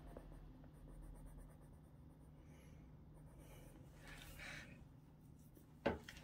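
Faint scratching of a coloured pencil shading on paper, in soft strokes, with one sharp tap a little before the end.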